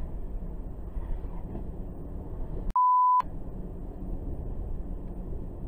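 A single censor bleep, a pure steady tone about half a second long, about three seconds in, with the other audio blanked out while it sounds. Around it is the low rumble of a car driving on the road.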